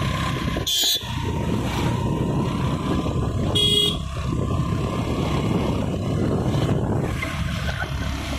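Steady engine and road rumble of a moving vehicle on a road, with two short horn honks, one about a second in and another about three and a half seconds in.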